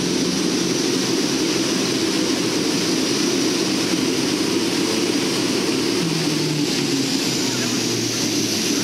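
Steady drone of a C-130T Hercules's four Allison T56 turboprop engines, heard inside the cargo hold with the rear ramp open.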